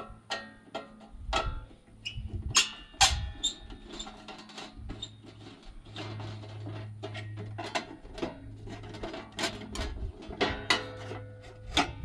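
Irregular metal clicks, taps and scrapes of a screwdriver working on the screws and cover of an outdoor steel breaker panel, with a steady low hum behind from about five seconds in.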